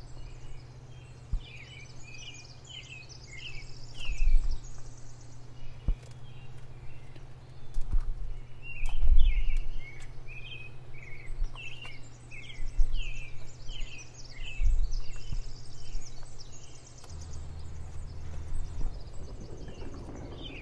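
Birds singing in short repeated chirping phrases over a steady low hum, with several low rumbling swells; the hum changes pitch near the end.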